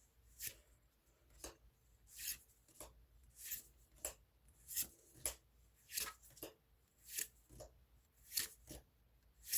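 Pokémon trading cards from a freshly opened booster pack being slid one from behind another, a short papery swish roughly every half second to second, about a dozen in all.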